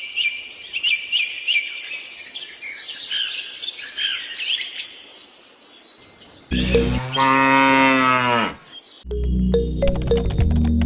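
Small birds chirping, then about six and a half seconds in a cow moos once, a long call that falls in pitch. Background music with a steady beat starts near the end.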